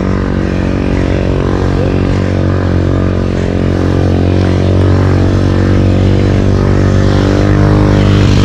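A motor vehicle's engine running at steady revs, slowly getting louder, as it climbs the hill close by.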